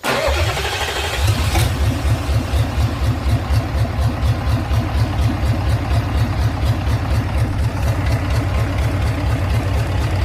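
RF8 engine running steadily with an even, rapid low beat.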